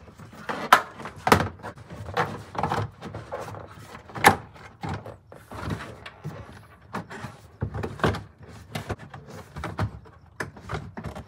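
Irregular knocks, clicks and thuds of plastic interior trim panels and cables being handled and pushed into place in a car's rear hatch area.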